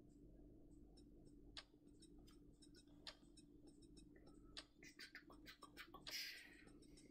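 Faint, irregular clicks of small LEGO plastic bricks being handled and pressed together, with a brief rustle about six seconds in.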